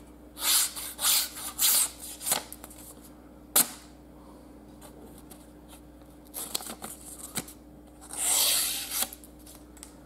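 A Ganzo Firebird FH41-CF folding knife's D2 steel blade slicing through paper: four quick cuts in the first couple of seconds, a sharp click about three and a half seconds in, and one longer cut near the end. It is a paper-slicing test of the factory edge, which the reviewer judges no longer scrapes the paper.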